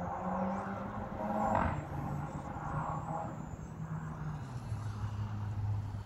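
A small radio-controlled airplane's motor and propeller droning overhead, its pitch dropping in steps, with wind buffeting the microphone.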